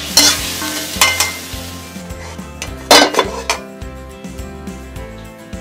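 Hot stir-fried greens and sauce sliding out of a wok into a stainless steel mesh strainer, with sizzling and metal scraping against metal, then one loud metallic clank about three seconds in. Soft background music runs underneath.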